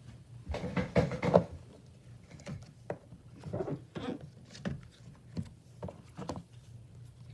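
Silicone pop-it fidget toys being handled and stacked: irregular soft knocks and rustling, busiest about a second in, then scattered single knocks.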